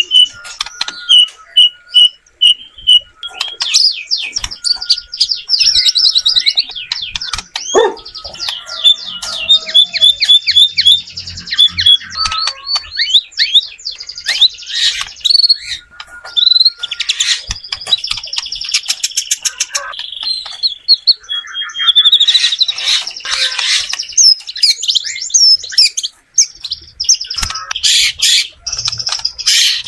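White-rumped shama singing a long, varied song of whistled notes, quick repeated notes and rapid trills, one phrase after another with short pauses.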